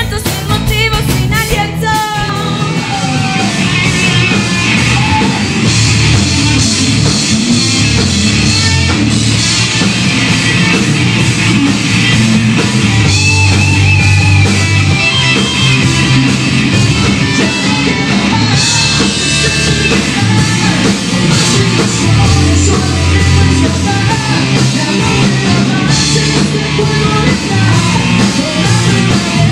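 Live rock band playing: electric guitars, bass and drums with a singer. About two seconds in the music changes abruptly, as one band's song gives way to another's.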